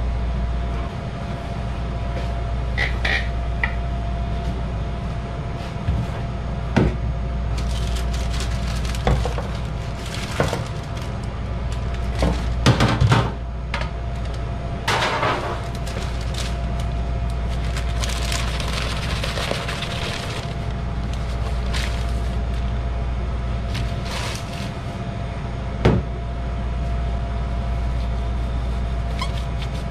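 Steady hum of kitchen ventilation with a faint steady tone, broken by scattered knocks and clatter as a bowl is set down on a steel counter, and by bursts of crinkly rustling from disposable plastic gloves being pulled on.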